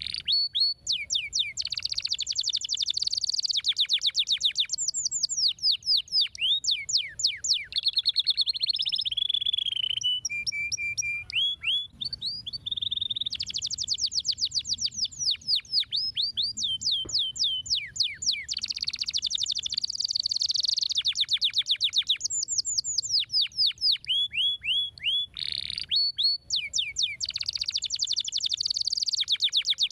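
Domestic canary singing: long phrases of fast repeated trills and rapid sweeping notes, with short pauses between phrases.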